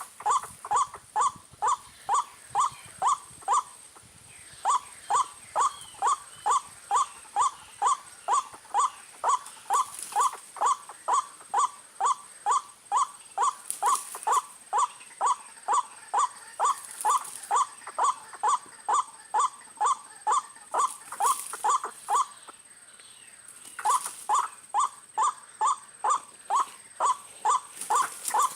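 White-breasted waterhen (ruak-ruak) calling: a harsh 'ruak' note repeated evenly at nearly three a second, broken by two short pauses.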